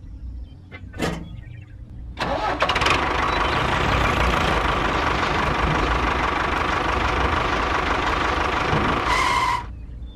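A small electric motor and gearing of a DIY model machine running steadily with a whine. It starts suddenly about two seconds in and stops abruptly shortly before the end, after a few short clicks at the start.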